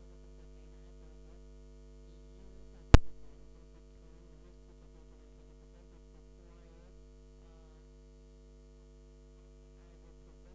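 Steady electrical mains hum in the microphone and PA chain, with one sharp knock about three seconds in.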